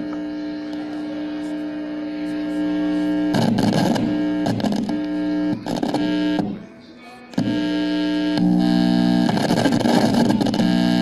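Loud mains hum, a steady buzz with many overtones, comes from the amplifier as its input lead is touched to the wire of a bare coil receiver. Rougher noisy stretches break over the hum at times, and the hum drops out briefly a little past halfway.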